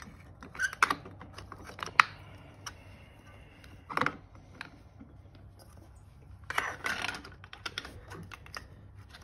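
Engine parts being handled during reassembly: scattered small clicks and taps of metal parts, a sharp click about two seconds in, a louder knock about four seconds in, and a scraping rustle around seven seconds.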